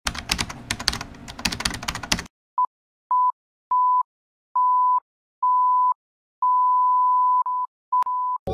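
Old-film crackle with dense clicks for about two seconds, then a steady mid-pitched beep keyed on and off in short and long tones, like Morse code, with a single sharp click near the end.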